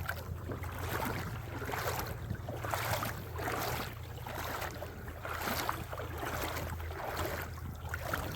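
Footsteps of a person walking at an even pace on a frozen creek bank, about one step a second.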